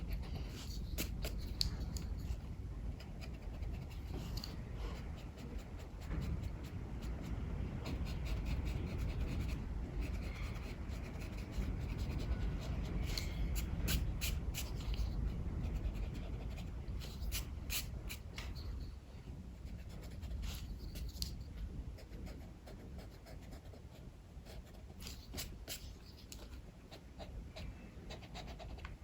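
Sketching strokes scratching on paper in short runs, over a steady low rumble of strong wind.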